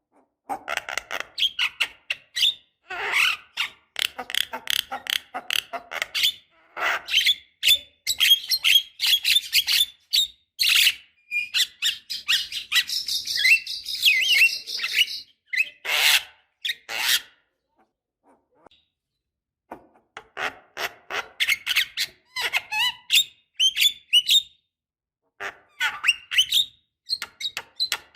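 Javan myna (jalak kebo) singing: a rapid, chattering run of short harsh notes, squeaks and whistles, with a buzzy stretch about halfway through. It breaks off for about two seconds, then starts up again.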